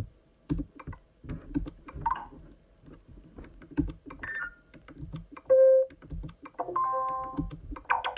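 Clicks of a BrailleNote Touch's braille keys as ringtones are scrolled and selected, with short electronic ringtone previews from its speaker: a brief loud tone about halfway through and a chord of held tones shortly after.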